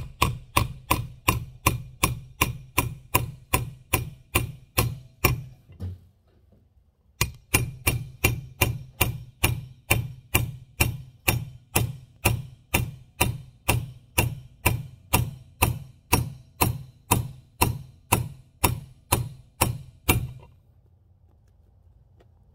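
Hammer striking a steel bearing-race driver in quick, even blows, about three a second, each with a short metallic ring, driving a new bearing race into a 1989 Suburban wheel hub. The hammering pauses for about a second after six seconds, resumes, and stops about two seconds before the end.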